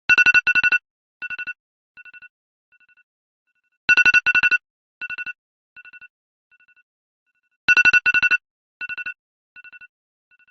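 iPhone alarm tone going off: a cluster of rapid beeps that repeats three times, about every four seconds, each cluster fading away in quieter, echoing repeats.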